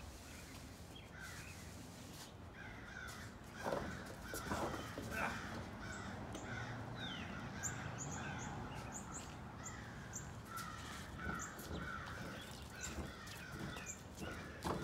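Birds calling outdoors: a run of short repeated calls, with high, brief chirps over them for a few seconds in the middle. A few louder knocks come at about four to five seconds in.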